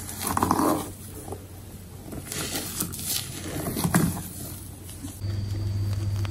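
Red silicone spatula folding thick, wet batter in a glass bowl: several wet scraping strokes. About five seconds in a steady low hum takes over.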